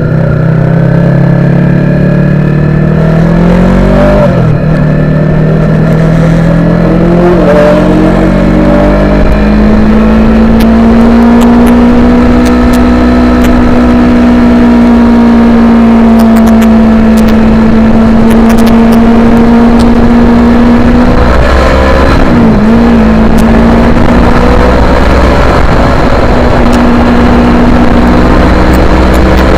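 Yamaha YZF-R3's parallel-twin engine running hard on track, heard from onboard. Its pitch climbs and falls with the throttle, drops sharply with quick revs about four seconds in and again about twenty-two seconds in, and holds a long, nearly steady high note in between.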